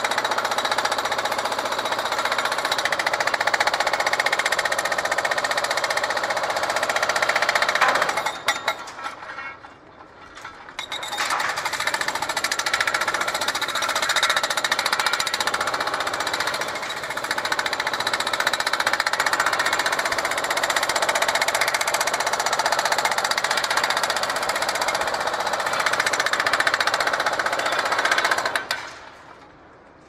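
Remote-controlled hydraulic breaker hammering concrete, a dense steady racket of blows. It stops for a few seconds about eight seconds in, runs again, and cuts off near the end.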